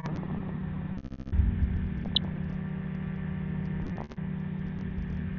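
Steady drone and noise of an ultralight trike's engine and pusher propeller in flight, with brief dips in level about a second in and near four seconds.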